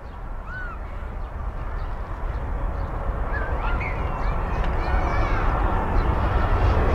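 Twin-engine jet airliner's engines at takeoff thrust as it lifts off and climbs: a low, rumbling jet roar that grows steadily louder. Short bird chirps sound over it.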